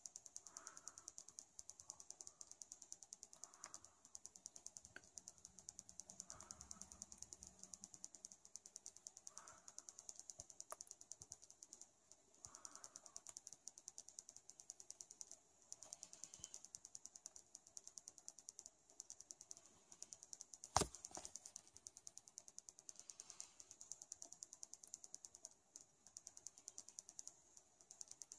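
Near silence: a faint, fast, even ticking throughout, with one sharp click about 21 seconds in.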